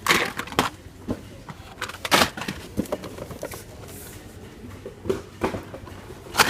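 Hot Wheels cars in plastic blister packs being handled and sorted out of a cardboard shipping case: irregular plastic clacks and rustles, about eight sharp ones.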